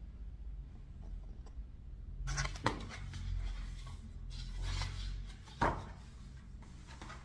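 Paper and plastic being handled: photobook pages and a plastic sleeve rustling in a few short brushes, with a sharp tap a little after five seconds in.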